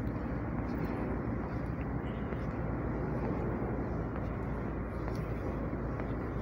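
Steady low rumble and hiss of background noise on a railway station platform, with no single distinct event standing out.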